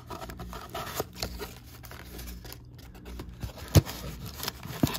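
Cardboard trading-card box being opened by hand: flaps rubbing and scraping as fingers reach in for the packs inside. A sharp knock about four seconds in is the loudest sound.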